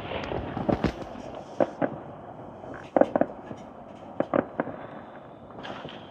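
Fireworks going off: a string of sharp bangs, many in quick pairs, over a rumble of more distant bursts. The loudest pair comes about three seconds in.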